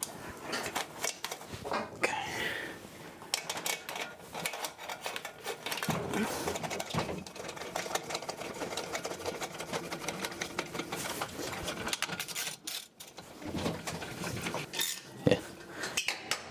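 Rapid light clicking and clatter of hand tools and metal parts being handled.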